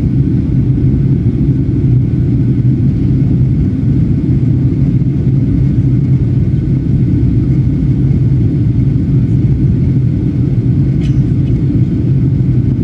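Steady low rumble of a jet airliner's engines and the airflow over the fuselage, heard from inside the passenger cabin.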